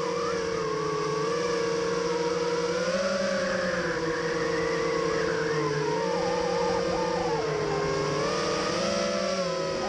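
Cobra 2204 2300kv brushless motors and tri-blade propellers of a 5-inch FPV quadcopter whining steadily, the pitch drifting up and down with the throttle, as heard from the camera on the quad.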